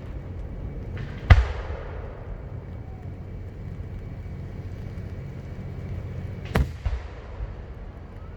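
Fireworks shells bursting overhead: one loud boom a little over a second in that trails off, then two more booms in quick succession near the end, with a low rumble between them.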